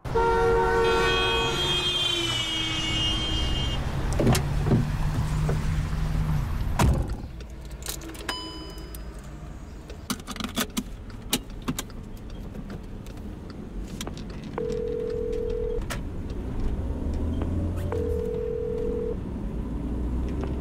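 Car interior sound with a low engine and road rumble and scattered clicks and knocks. From about two-thirds of the way in, a telephone ringback tone beeps three times, a steady tone about a second long every few seconds, as a call is placed again.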